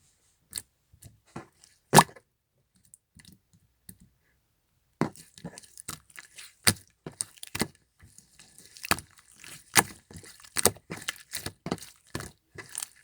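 Clear slime being squeezed and stretched by hand, making sharp clicks and pops: a few scattered pops at first, then rapid, dense popping from about five seconds in.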